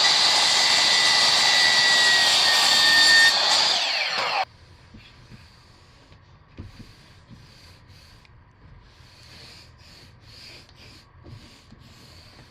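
A motorised power tool running loudly and steadily, then cutting off suddenly about four and a half seconds in. After it, faint repeated scraping strokes.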